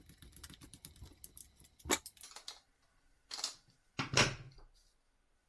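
Small hand-handling noises of a thermostatic radiator valve head being refitted and adjusted. A run of rapid light clicks lasts for the first two and a half seconds, with a sharp knock about two seconds in. Two louder, longer handling noises follow around three and a half and four seconds in.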